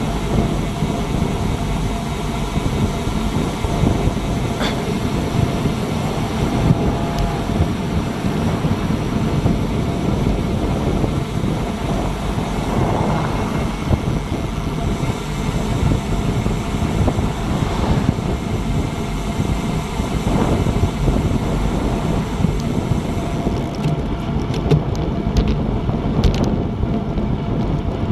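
Wind buffeting the microphone of a bike-mounted action camera while riding at about 20 to 24 mph: a loud, steady rushing rumble. A few faint clicks near the end.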